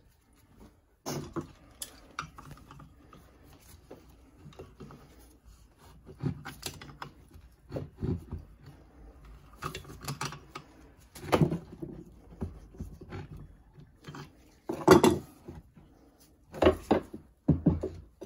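Irregular metal clinks and knocks as a Dana 60 front axle shaft and pliers are handled on a wooden workbench, with pliers working at the U-joint cap. The loudest knock comes about 15 seconds in, and a few more come near the end.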